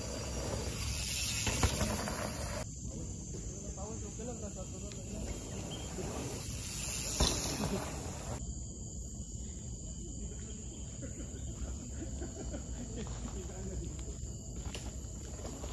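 Insects droning steadily on one high note, over a low rumble, with two brief swells of hiss about a second in and again about seven seconds in.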